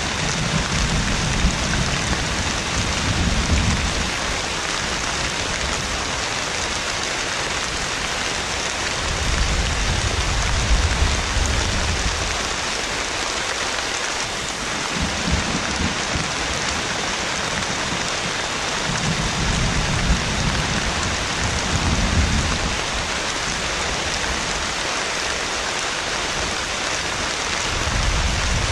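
Heavy rain falling steadily, with low rolls of thunder rumbling in several times, each lasting a few seconds.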